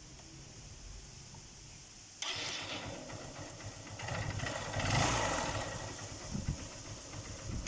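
Engine, freshly rebored with a new piston, starting about two seconds in, rising briefly in level around five seconds, then settling into running.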